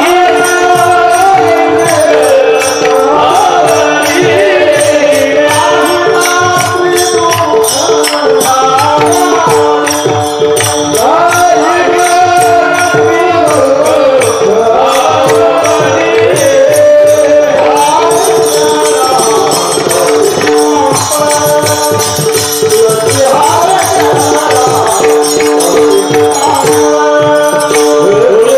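A man sings a devotional Marathi bhajan (panchapadi) in long, bending melodic lines over the steady drone of a shoulder-held tambura (Warkari veena). Small hand cymbals keep a steady beat.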